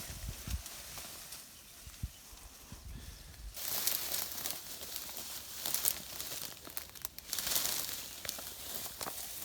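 Rustling and crinkling of brush and leaves, with a few low knocks in the first few seconds, then a denser, crackly rustling from about three and a half seconds in.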